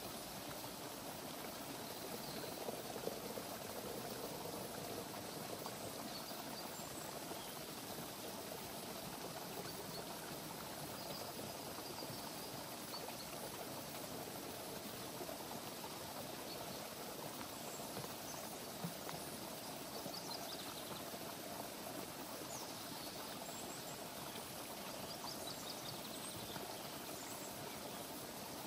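Steady outdoor rushing noise, with faint high chirps now and then in the second half.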